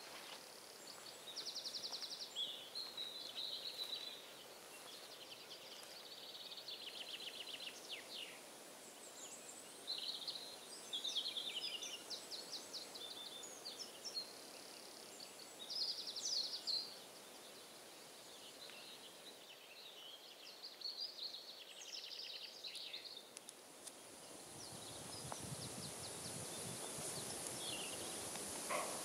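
Woodland birds chirping and trilling, quiet and scattered, over a steady faint high hiss. Near the end a rustling swell rises under them.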